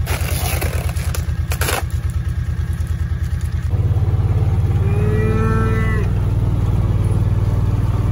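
A utility vehicle's engine runs steadily throughout and gets louder a little past the middle. Near the start, loose mineral rushes out of a bag into a plastic feeder for about two seconds. A cow gives one moo of about a second, roughly five seconds in.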